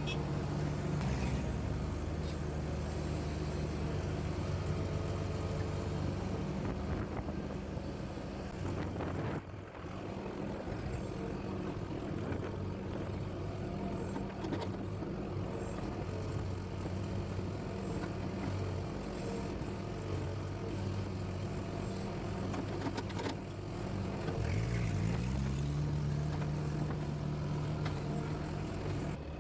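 Hydraulic excavator's diesel engine running steadily while it works, rising in pitch as it revs up about 25 seconds in.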